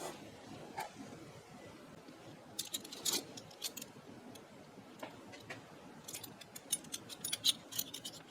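Metal flatware clinking as spoons and forks are picked out of a box and handled: scattered light clinks, with a denser run of them over the last couple of seconds.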